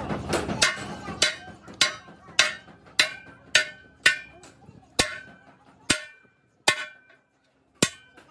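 Sledgehammer blows on a road roller's steel wheel rim resting on an anvil, as the bent rim is hammered back into shape. Each blow is a sharp metallic clang with a ringing tail. There are about eleven, a little under two a second at first, then slower and more spread out.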